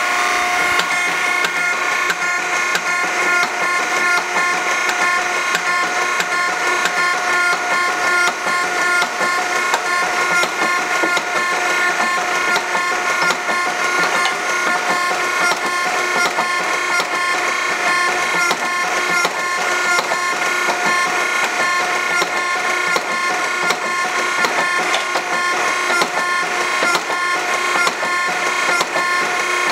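Hydraulic forging press cycling automatically: the pump whines steadily while the ram strokes down onto a glowing hot bar again and again in a quick, regular rhythm of knocks.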